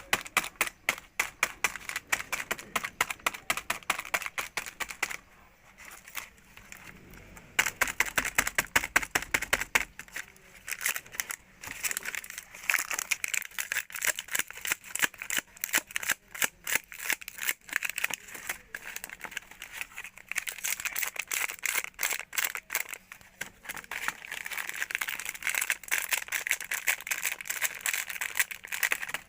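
Rapid, irregular clicking and rattling, many sharp clicks a second, easing off briefly about five seconds in and picking up again about two seconds later.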